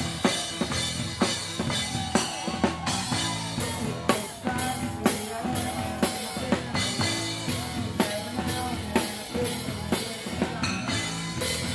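Rock music with a steady, driving drum-kit beat of kick and snare, and a melodic line that bends in pitch over it.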